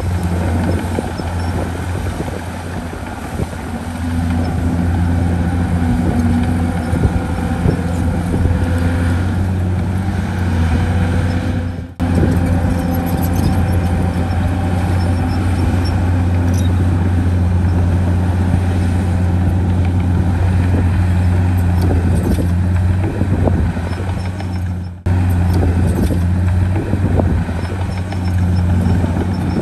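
Heavy diesel engine of earthmoving machinery running steadily with a deep low hum. The sound drops out briefly and suddenly twice, about 12 and 25 seconds in.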